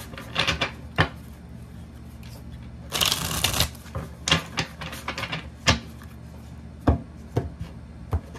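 A deck of tarot cards shuffled by hand: a brief rush of cards sliding together about three seconds in, with sharp clicks and taps of the cards scattered through.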